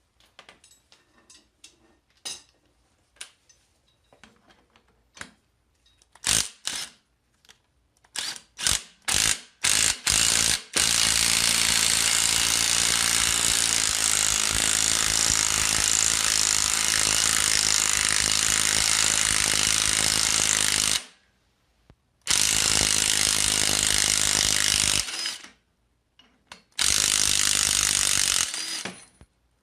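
Impact wrench hammering on a stubborn engine bolt, first in a few short bursts, then running for about ten seconds straight, then two shorter runs. The bolt would not come loose with a breaker bar and needs the impact wrench's hammering to break it free.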